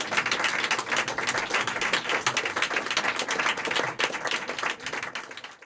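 Audience applauding with dense hand clapping that dies away near the end.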